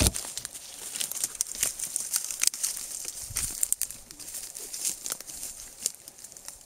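Footsteps of a person and a dog walking through dry logging slash: irregular crackling and snapping of twigs, branches and dry leaves underfoot, with a heavier thump right at the start.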